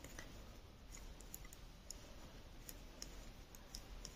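Faint, irregular light clicks of metal knitting needles tapping together as stitches are knitted.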